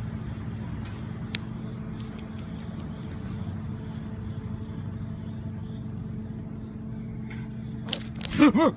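A steady low mechanical hum throughout, with a few faint clicks, then near the end a sudden loud wavering cry whose pitch bends up and down.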